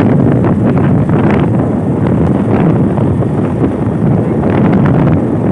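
Wind buffeting the microphone of a phone held by a rider on a moving motorcycle: a loud, steady rumble, with the ride's road and engine noise mixed under it.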